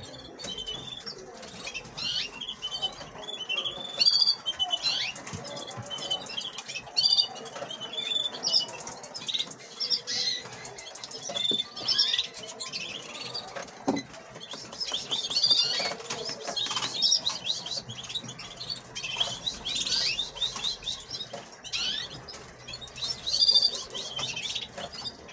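Canaries chirping and twittering in many short, high calls, with scattered clicks and rustling.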